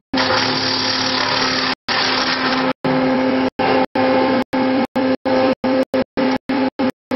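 A 1460-2 wood shaving machine is running, planing pine into big shavings. It makes a loud, steady rushing noise over a constant hum. The sound cuts out to silence for a split second many times over.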